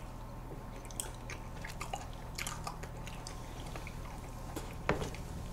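Close-miked eating of soft ice cream cake: faint mouth sounds with scattered small clicks of forks and teeth, and one slightly louder tap near the end, over a steady low hum.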